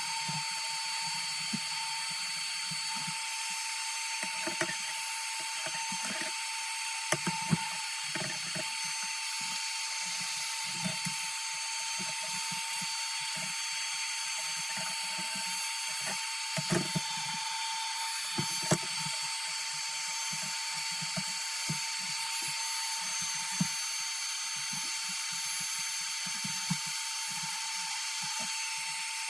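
Small hand tools scraping and clicking against a phone as its screen is pried off the housing, in irregular short strokes with a few sharp clicks, over a steady hiss with a thin high whine.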